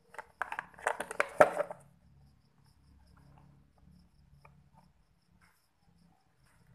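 Clattering and knocking of a plastic blender motor base being handled on a tile floor, with one sharp knock about a second and a half in. After that only faint small ticks are heard.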